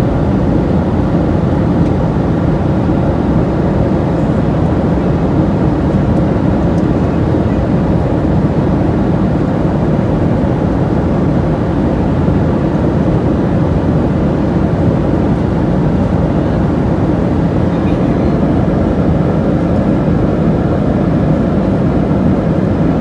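Steady in-flight cabin noise inside a Boeing 737-800 with CFM56-7B engines: a continuous, even drone of engine and air noise that does not change.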